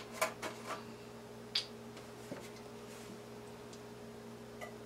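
A few faint clicks and light knocks of kitchen items being handled, mostly in the first two seconds, over a steady low hum.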